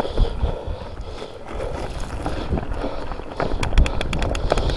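Mountain bike rolling downhill over loose slate, with a steady low rumble from the tyres and bike. About three and a half seconds in comes a quick run of sharp clicks and knocks as the bike rattles over the stones.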